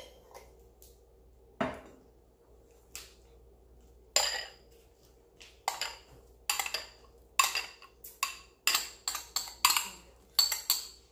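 Metal spoon clinking and scraping against a small bowl as blended seasoning is knocked out onto chicken in a glass bowl. A few scattered clinks at first, then quick repeated taps through the second half.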